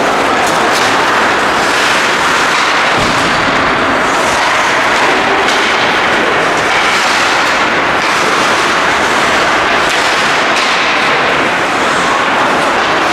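Ice hockey game noise on the rink: a steady, loud din with many short, sharp scrapes and clacks.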